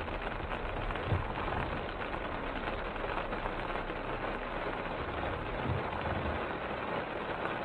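A car driving in heavy rain: a steady wash of rain and road noise over the engine running. Two short low thumps come about one second in and again near six seconds.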